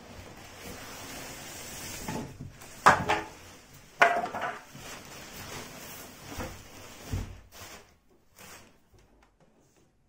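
Handling noise: a couple of seconds of rustling and scraping, then two sharp knocks about a second apart, followed by scattered bumps and a low thud, as the washing machine and its cardboard carton are moved and handled.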